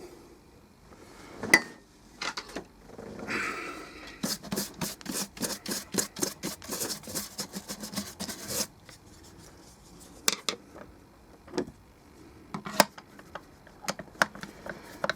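Screwdriver working screws out of a plastic speaker casing: scattered sharp clicks and taps, with a run of quick ticks from about four to nine seconds in.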